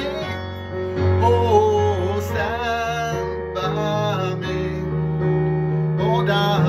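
A man singing a song in a deep voice over sustained instrumental chords, the bass note shifting up a step about halfway through.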